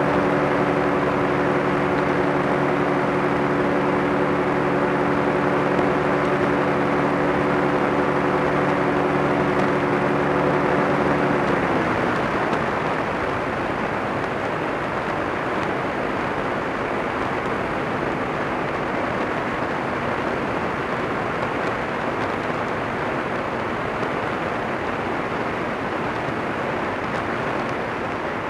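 Kolb ultralight's pusher engine running at a steady drone over the rush of wind. About twelve seconds in the engine note dips and drops out as power comes off, leaving only the rush of air over the airframe.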